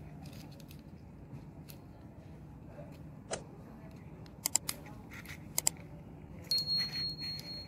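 Small metal parts of a magnetic contactor clinking as they are handled and set down: one sharp click, then two quick pairs of metallic clicks, over a faint low hum. Near the end a high steady tone sounds for over a second along with a louder rattle.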